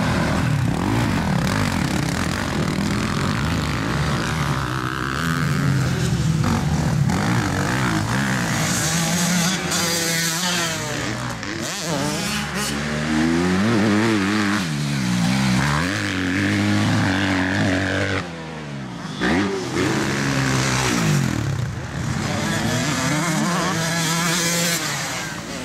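Motocross bike engines revving hard as the bikes ride the dirt track, the engine note repeatedly climbing and dropping as they accelerate, shift gears and back off into corners.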